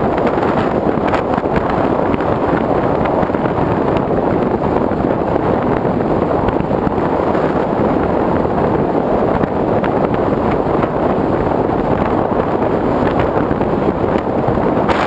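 Steady, loud rush of airflow buffeting the onboard GoPro camera of a Multiplex Easystar RC plane in flight.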